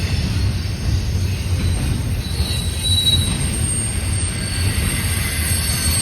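CN freight train rolling past with a steady low rumble, and a brief high wheel squeal about three seconds in.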